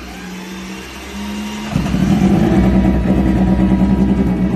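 Moto2 race bike's Triumph 765 cc three-cylinder engine running at a steady pitch. It gets clearly louder and rougher a little under two seconds in.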